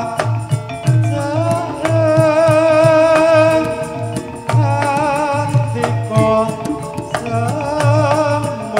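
Javanese gamelan playing for a tayub dance: a kendang hand drum beats a steady pattern of deep strokes, about two a second, under struck bronze keys and gongs, with a voice singing a wavering, long-held melody over them.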